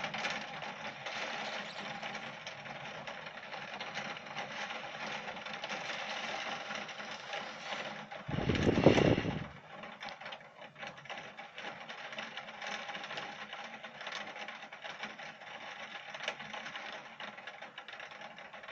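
Heavy rain and hail pattering steadily in a dense stream of fine ticks, with a loud low rumbling burst lasting about a second about eight seconds in.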